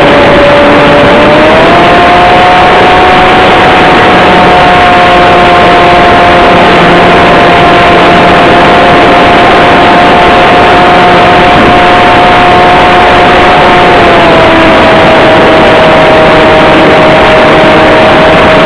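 Radio-controlled airplane's motor and propeller heard from a camera mounted on the plane: a steady, loud whine buried in heavy wind and vibration noise. Its pitch steps up about one and a half seconds in, holds, and drops slightly about four seconds before the end.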